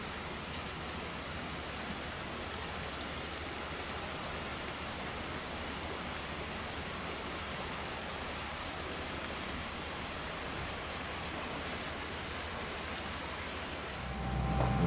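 Steady rushing of flowing water, like a stream running through the snow, an even noise with no distinct events. About a second before the end, background music fades in over it.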